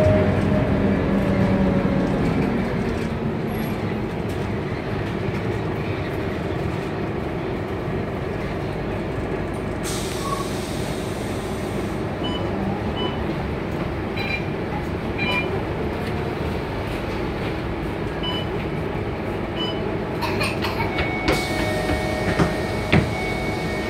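Cabin noise of a city bus in motion: steady engine and road noise, with a droning engine tone that fades over the first couple of seconds. A hiss lasting about two seconds comes around ten seconds in, and another hiss with a faint steady tone near the end.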